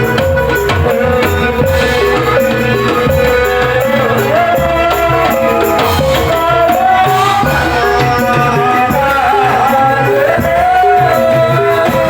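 Loud traditional folk music: drums and hand percussion keep a steady beat under a wavering melody that slides between notes.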